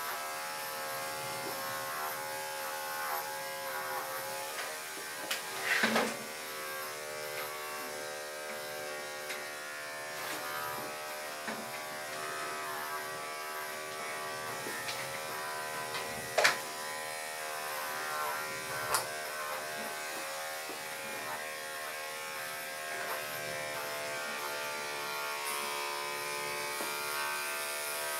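Corded electric dog-grooming clippers running with a steady buzz as they shave a dog's coat. A few short sharp clicks stand out: one about six seconds in and two more a little past halfway.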